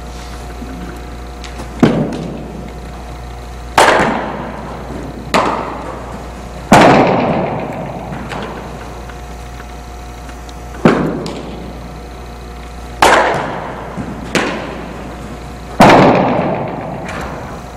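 Repeated sharp baseball impacts, eight in all, coming every one to two seconds, each followed by an echo that fades over about a second, as in a large indoor hall. A few fainter knocks fall between them.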